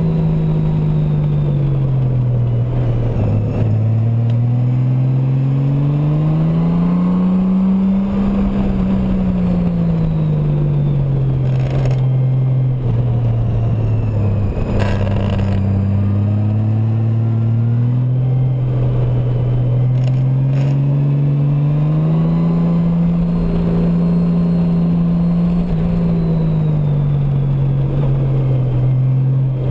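Honda Gold Wing's flat-six engine running under way, its note rising and falling several times as the rider opens and closes the throttle through the curves, over a steady rush of wind and road noise. A few brief clicks come through in the middle.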